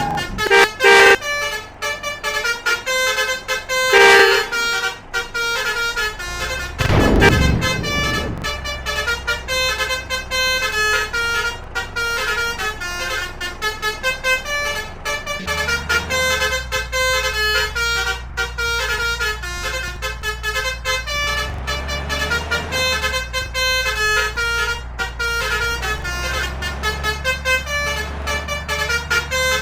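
Basuri multi-trumpet 'telolet' bus horn playing a fast run of short melodic notes that change pitch rapidly, with a few loud blasts in the first several seconds. A low steady hum joins about halfway through.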